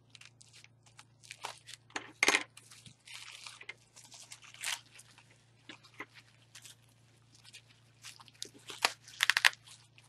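Plastic packaging and bubble wrap crinkling and crackling in irregular bursts as hands cut and pull it open, with scissors snipping the plastic at first.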